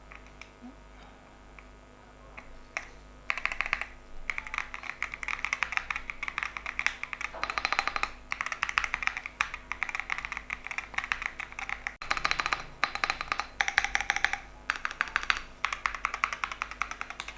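Typing on a Chilkey PAW65 aluminium-case mechanical keyboard with Pink Lotus linear switches and DDA-profile keycaps: fast runs of keystrokes starting about three seconds in, broken by a few short pauses.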